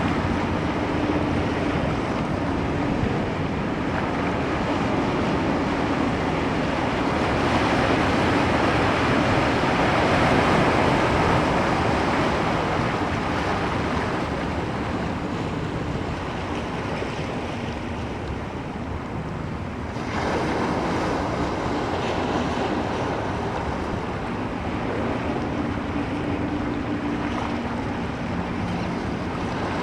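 Ocean surf: a steady wash of breaking waves that swells and eases, loudest about ten seconds in, with a sudden jump in level about twenty seconds in.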